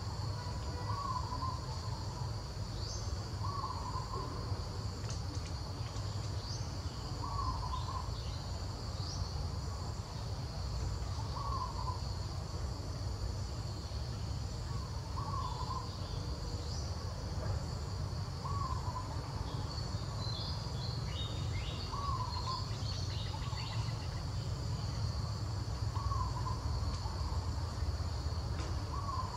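Forest ambience: a steady high insect drone, with a short call repeating about every two seconds and a few brief high chirps around twenty seconds in, over a low rumble.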